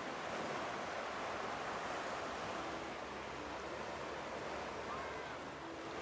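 Atlantic Ocean surf washing onto the beach: a steady rush of breaking waves.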